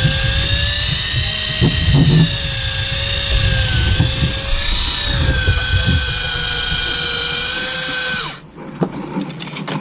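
Electric fishing reel's motor winding in line, a steady whine that wavers slightly in pitch and cuts off abruptly a little over eight seconds in.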